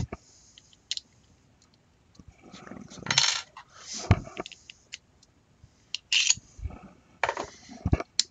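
Small hard plastic and metal paintball-marker parts handled on a tabletop: scattered clicks, taps and brief clatters, the loudest about three, four and six seconds in and again near the end.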